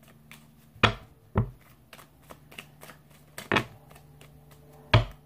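A deck of cards being shuffled by hand: a run of soft, irregular card ticks with four sharper snaps among them.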